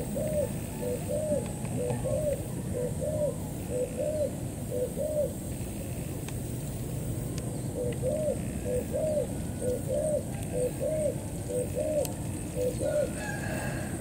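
Spotted dove cooing: two runs of short, arched coos, about one and a half a second, with a pause of a couple of seconds between them.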